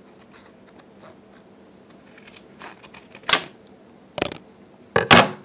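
Pokémon trading cards and booster-pack wrappers being handled close to the microphone: faint light ticks, then several short, sharp crinkling rustles in the second half.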